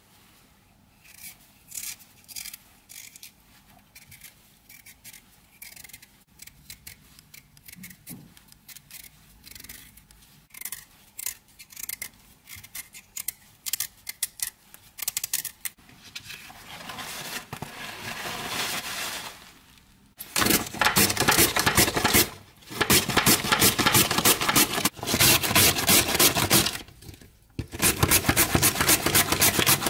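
Raw beetroot skin being pared off with a small knife in short, light scraping strokes. From about twenty seconds in, a beet is grated on a plastic julienne grater with metal teeth: loud, rapid rasping strokes, broken by two brief pauses.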